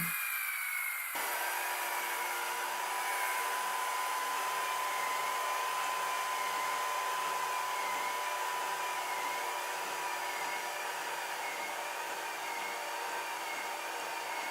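Kossel delta 3D printer running: a steady fan hiss with a thin, steady whine, and faint stepper-motor tones that waver up and down in pitch as the print head moves.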